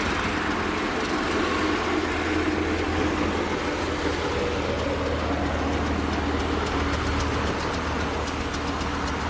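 Dump truck engine running steadily with a low hum.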